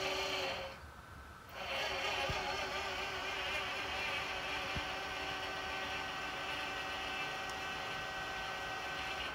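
Servo motor driving a slewing drive's worm gear during a slow test move: a steady whir that drops away for about a second near the start, then runs again.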